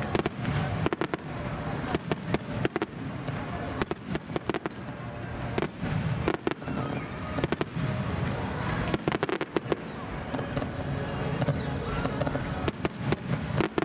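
Star mine fireworks barrage: aerial shells launching and bursting in rapid succession. Bunches of sharp bangs and crackles come every second or two over a continuous low rumble.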